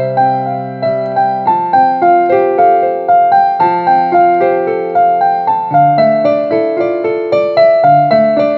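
Digital piano playing a slow, gentle melody over sustained bass notes, about two notes a second, each struck and then fading.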